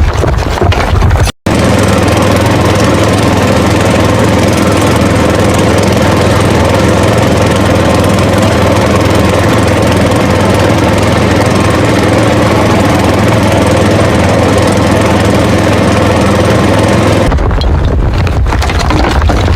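A small motor running steadily with an even hum. It breaks off for an instant about a second and a half in, and near the end gives way to a rougher, noisier running.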